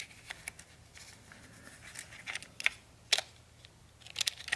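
Scattered small clicks and scrapes of hands handling a Pentax Espio 160 35mm point-and-shoot camera and its film while loading it.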